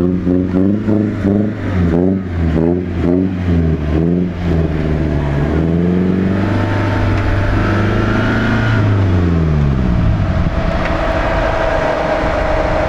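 Off-road 4x4 engine revving up and down repeatedly as the vehicle climbs a dirt slope, then running at a steadier pitch, with one slow drop in revs a little past the middle.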